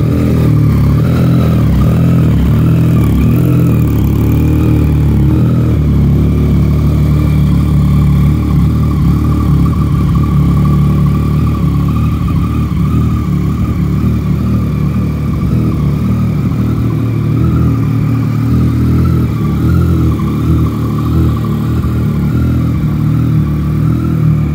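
2015 Yamaha FZ-09's 847 cc inline three-cylinder engine idling steadily in neutral.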